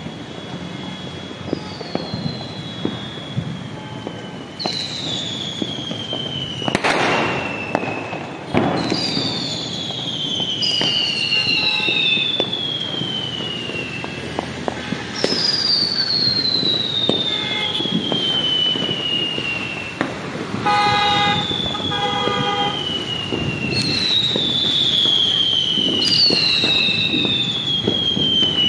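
Fireworks going off across a city: a continuous crackle of distant firecrackers with scattered bangs, the loudest about seven seconds in. Over it, whistling fireworks sound again and again, each a long falling whistle, several overlapping. A vehicle horn honks twice about 21 seconds in.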